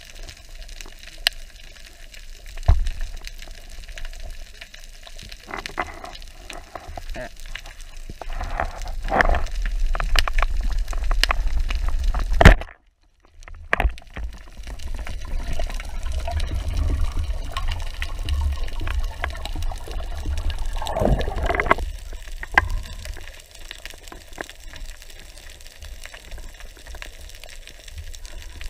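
Underwater sound heard through a camera housing: a low rumble of moving water with scattered clicks, broken about halfway through by one sharp crack from a band-powered speargun firing. A short downward-sliding sound follows several seconds later.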